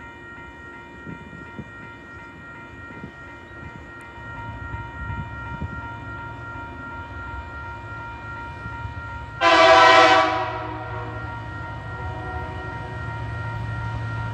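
Level crossing warning bell ringing steadily while the low engine sound of an approaching Tasrail TR-class diesel locomotive builds up. About nine and a half seconds in, the locomotive gives one loud horn blast of about a second.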